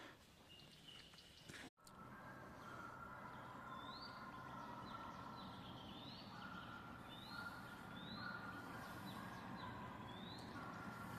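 Faint bird calls: short rising chirps repeated about once a second over quiet outdoor background noise.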